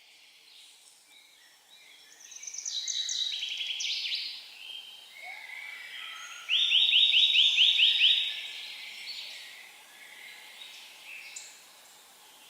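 Songbirds singing in woodland: about two seconds in, a high trill that steps down in pitch in stages, then a louder run of about nine quick repeated notes, all over a faint background hiss.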